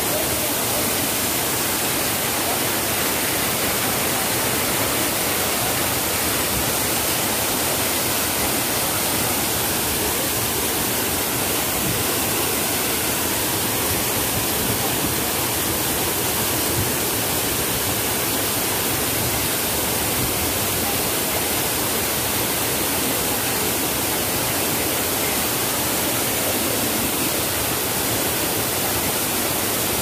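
Steady rushing wind and road noise inside the cab of a moving vehicle, loud and even throughout.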